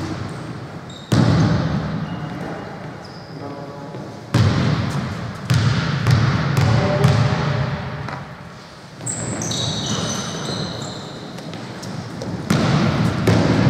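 A basketball bouncing on a wooden gym floor during a game, with several sudden heavy bounces, players' voices and a few short high squeaks near the middle, all echoing in a large hall.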